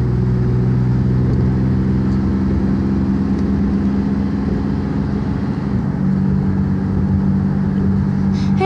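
Car engine hum and road noise heard from inside a moving car, the engine's pitch shifting a couple of times.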